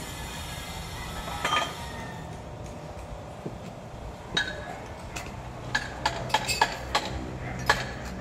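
Scattered sharp clinks and taps of hard objects knocking together, a few in the first half, then a quick run of them in the second half, over steady background noise.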